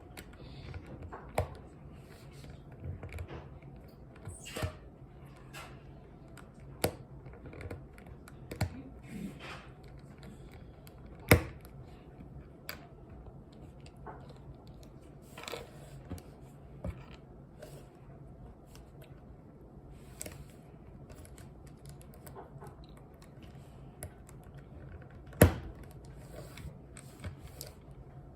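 Irregular small plastic clicks and snaps of a mini Rubik's cube's pieces being pried apart by hand, with two sharper, louder snaps about 11 and 25 seconds in.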